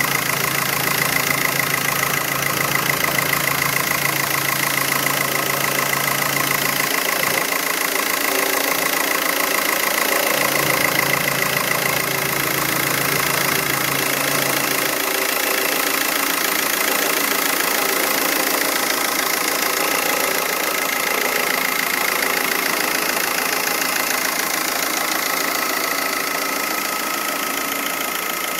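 2005 VW TDI's BRM 1.9 L four-cylinder turbodiesel idling, with a steady high-pitched whine running over the engine sound. It is the intermittent odd noise the owner cannot identify, heard loudest near the big black pipe. A low hum under it drops out about halfway.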